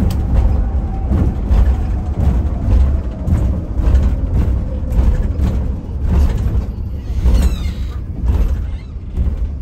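Bus running with a steady low engine rumble, overlaid with frequent short knocks and rattles from the body and fittings.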